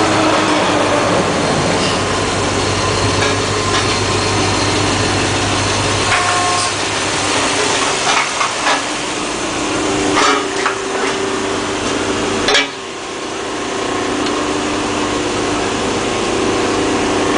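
Exhaust pipe bender and shop machinery running steadily, with a low hum that fades about six seconds in. Several sharp metal clanks follow, and from about ten seconds in a steady machine whine.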